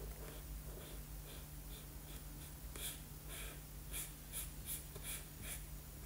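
Felt-tip marker strokes scratching on paper as a picture is coloured in. Faint strokes at first, then a louder run of about seven quick strokes from about three seconds in, over a steady low hum.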